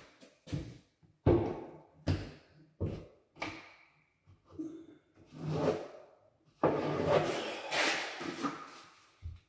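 Hand work at a kitchen countertop and backsplash: several short, sharp knocks, then a longer scraping, brushing sound as a hand sweeps across the countertop near the end.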